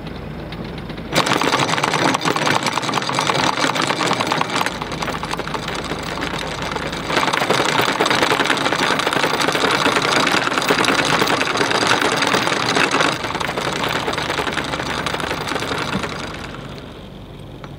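Anchor chain rattling out through the bow windlass as the anchor is dropped. It starts suddenly about a second in, grows louder midway and dies away near the end. The boat's engine runs low and steady underneath.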